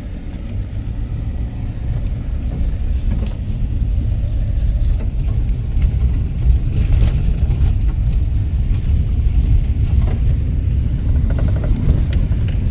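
Vehicle driving on a rough unpaved road, heard from inside the cabin: a low rumble of engine and tyres that grows louder over the first few seconds as it picks up speed, then holds steady, with frequent small rattles and clicks throughout.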